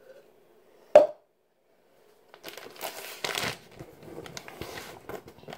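A single sharp click about a second in, then plastic food packaging crinkling and rustling as it is handled.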